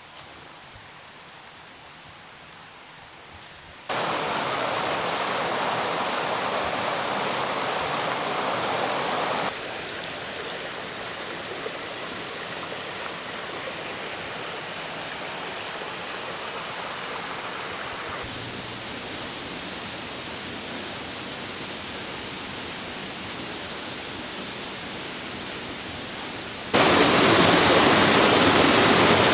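Steady rush of falling water from a creek waterfall, faint for the first few seconds, then jumping louder in sudden steps, loudest near the end.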